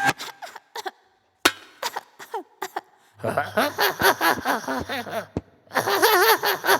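A run of sharp knocks and cracking impacts over the first three seconds, the loudest about a second and a half in. From about three seconds, wavering wordless vocal sounds follow and rise again near the end.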